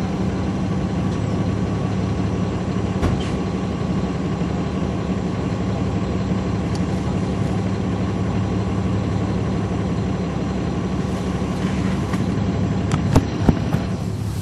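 A NABI 40-SFW transit bus's Caterpillar C13 diesel running at a steady pitch, heard from inside the cabin at the rear, with a sharp knock about three seconds in and two more in quick succession near the end.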